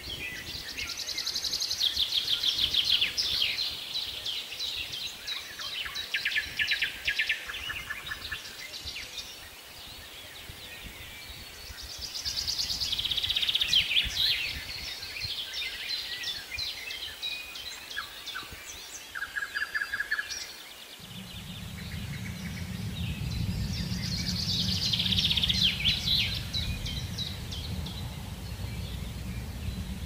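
A songbird singing in three bouts of fast trilled notes that step down in pitch. A steady low rumble comes in about two-thirds of the way through.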